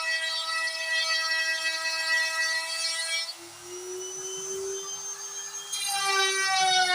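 Stepper motors of a DIY CNC carving machine whining as it moves the cutter. The whine holds one steady pitch, switches to a lower tone about three seconds in that slowly rises and falls, then jumps higher again and glides down near the end as the moves change speed.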